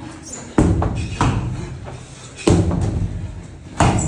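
Four heavy thuds of gym equipment hitting a rubber-matted floor, each ringing briefly in a large hall.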